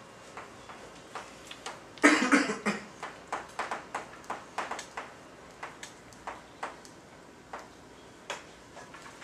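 Chalk writing on a blackboard: a string of short, sharp, irregular taps and strokes as the chalk hits and drags across the slate. About two seconds in there is a brief voice sound, the loudest moment.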